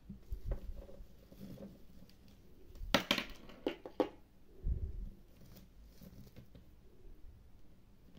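Hands handling a small plastic doll and its plastic props: light taps and rustling, with a quick run of sharp clicks about three seconds in and a soft low knock near five seconds.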